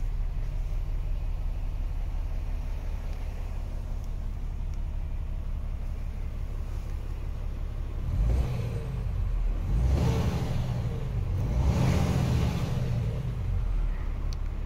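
MAN TGX 18.580's 12.4-litre straight-six diesel idling with a steady low rumble, heard from inside the cab, then revved a few times in the second half.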